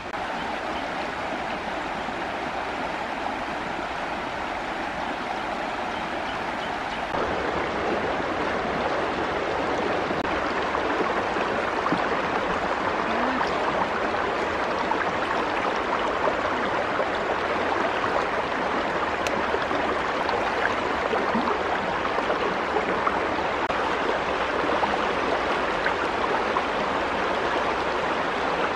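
Shallow stream running over rocks: a steady rush of flowing water, growing louder about seven seconds in.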